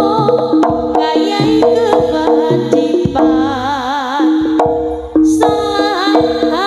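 Live Javanese jaranan music from a gamelan ensemble: struck metal percussion notes in a steady repeating pattern over kendang drum strokes. About halfway through, a wavering held melody rises above them.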